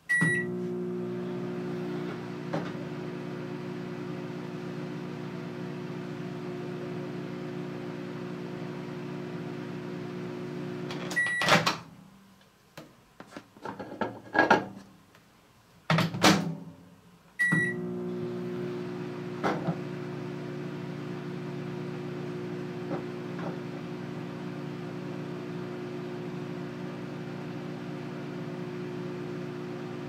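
Rival microwave oven running on high with a low, steady hum after a start beep. About 11 seconds in it beeps and the hum stops, a couple of knocks follow in the quiet, and about 17 seconds in it beeps and the hum starts again.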